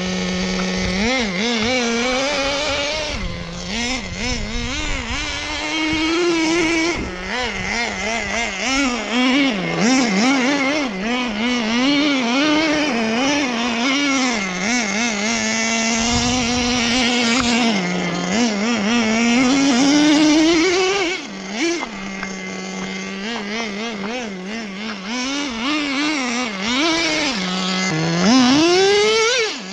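Traxxas Nitro Slash RC truck's small nitro two-stroke engine, a high buzzing note that rises and falls as the throttle is worked. It drops back to a steady idle several times, with a quick sharp rev near the end.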